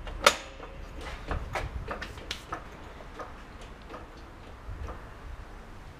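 Hydraulic floor jack being pumped by its long handle under a tractor's rear axle: a sharp metallic click just after the start, then a string of lighter, irregular clicks and knocks that thin out after about three seconds.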